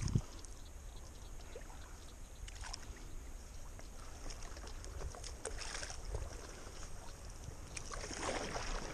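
Paddle strokes from a paddle board, the blade dipping and pulling through the water in a few soft splashes and drips a few seconds apart, the strongest near the end, over a low steady rumble.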